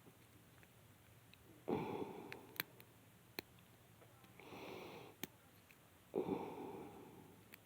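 A person sniffing three times, each one starting suddenly and fading over about a second, with a few sharp, faint clicks in between.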